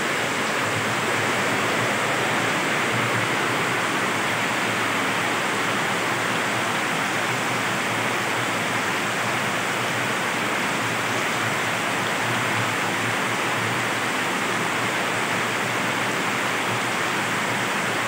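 Heavy rain pouring down in a steady, even hiss that does not let up.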